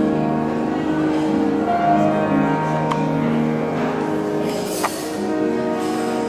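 Grand piano playing a classical piece live, sustained notes ringing on one after another. Two short clinks of tableware cut in, about three and five seconds in.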